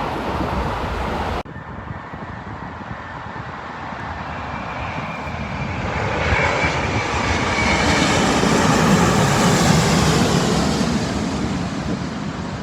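Jet airliner passing, its engine noise swelling to a peak about two-thirds of the way through and then easing off, with a high whine heard as it approaches. The sound changes abruptly about a second and a half in, where the recording cuts.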